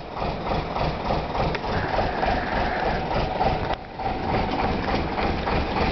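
Routemaster double-decker bus's diesel engine idling steadily.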